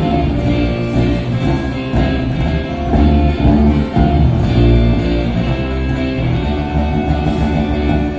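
Live rock band playing an instrumental passage, strummed guitar over bass, with little or no singing.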